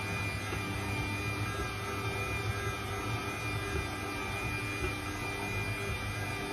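Electric stand mixer running at a steady speed, its dough hook kneading wet bread dough in a stainless steel bowl: a constant motor hum with a thin high whine.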